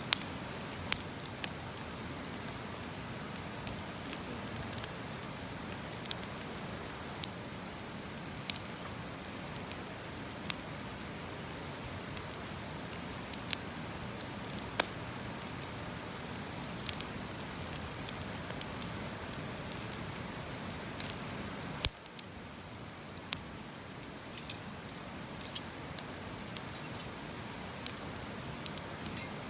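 Wood campfire crackling: irregular sharp pops and snaps over a steady low hiss. The background hiss drops a little about two-thirds of the way through.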